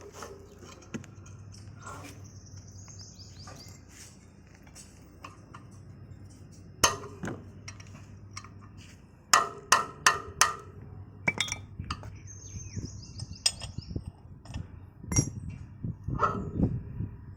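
Metal tools clinking and knocking on rotavator parts during the oil seal job: scattered taps, a quick run of four sharp strikes about nine to ten seconds in, and another cluster of knocks near the end.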